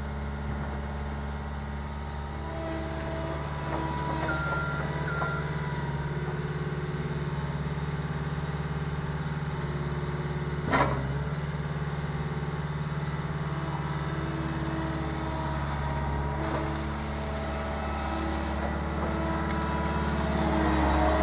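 Diesel engine of a Cat 259B3 compact track loader running steadily, with a single sharp knock about halfway through.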